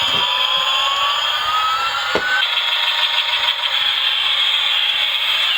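Battery-operated bump-and-go toy Airbus A380 plane running with its electronic sound effects played through a small tinny speaker: a steady high whine with tones that slowly glide up and down. A single knock about two seconds in.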